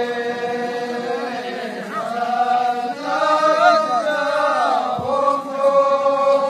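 Men's voices chanting an Ahwash (Amazigh collective) song in unison, holding long drawn-out notes without drums. The pitch steps up about two seconds in and again a second later, with wavering ornamented turns before it settles on a held note.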